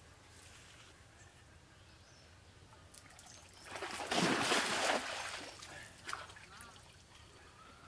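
Water splashing and pouring about four seconds in as a cast net is swung out and lands on the pond, fading to light trickling and dripping.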